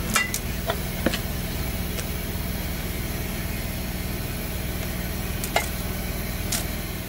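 A spoon clicking and scraping against a foil-lined metal baking tin while spreading cake batter, several sharp clicks in the first second and two more near the end, over a steady low mechanical hum.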